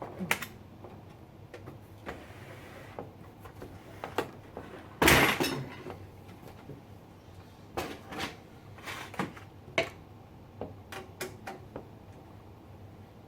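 Clicks and knocks of computer parts and cable connectors being unplugged and handled during disassembly, with one louder clatter about five seconds in.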